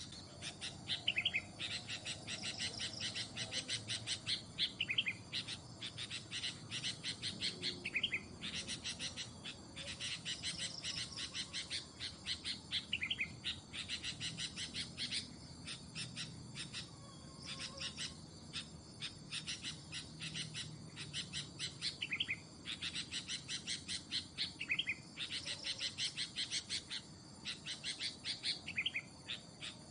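Sooty-headed bulbul (kutilang) chattering in the fast 'cengkram' style: dense trains of sharp rapid chirps, broken now and then by short whistled notes.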